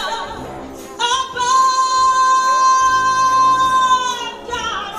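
A woman's voice singing a gospel worship song, holding one long high note for about three seconds before it falls away.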